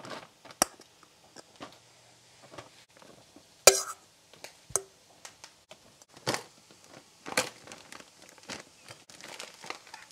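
Plastic storage bag crinkling and rustling as cooked potatoes are spooned into it and the bag is pressed shut, with scattered light clicks and knocks of a spoon and pot; one sharp knock a little over a third of the way through is the loudest.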